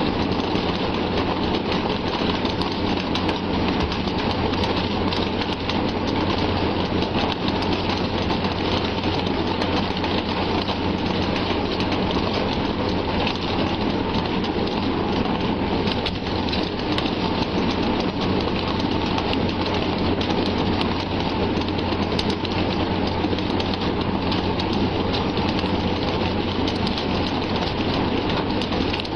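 A mass of fish thrashing and splashing in a packed net, over the steady low running hum of a boat's outboard motor.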